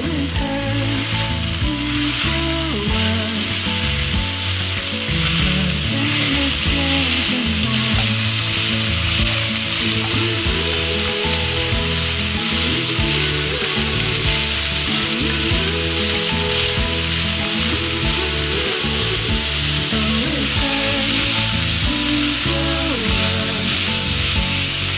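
Food frying in a pan with a continuous steady sizzle, over background music.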